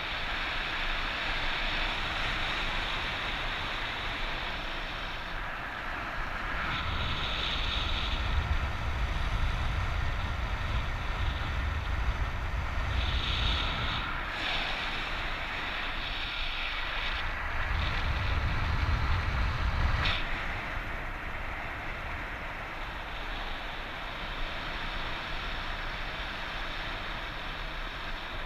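Wind rushing over the camera microphone of a paraglider in flight, a steady hiss with gusts that swell into a heavier rumble twice, about a quarter of the way in and again about two-thirds in.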